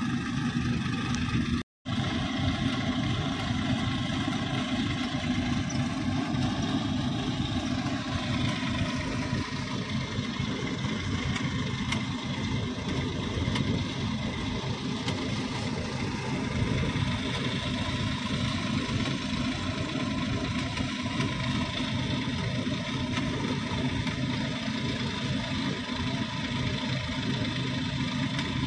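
Tractor-driven groundnut thresher running steadily under load: the tractor engine and the thresher drum hum evenly as groundnut vines are fed in, with a brief silent break about two seconds in.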